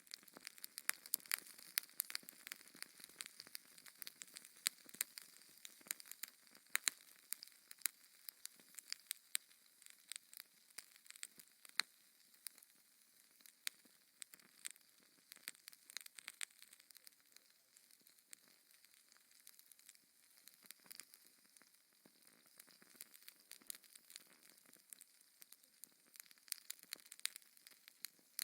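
Wood fire in a fireplace crackling: irregular sharp pops and snaps over a soft hiss of burning.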